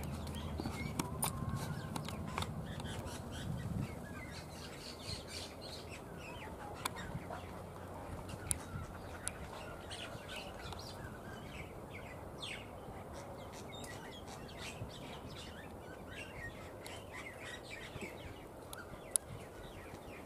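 Many small birds chirping, a steady scatter of short downward calls. A low hum sits under them for the first few seconds, then fades.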